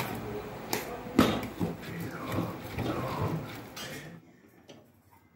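Aluminium cookware clanking, with a sharp clank about a second in, over indistinct vocal sounds; the sound drops away abruptly near the end.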